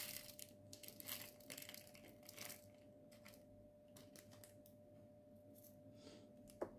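Faint crinkling of small plastic zip-lock bags and light rattling of plastic drill containers being handled, busiest in the first couple of seconds, with a short sharp click near the end. A faint steady hum sits underneath.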